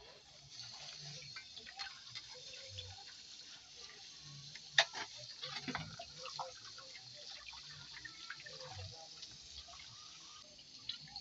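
Tap water running and splashing into a plastic basket while hands rub and rinse a plastic-wrapped bundle, with crinkling and small knocks throughout; one sharp knock about five seconds in.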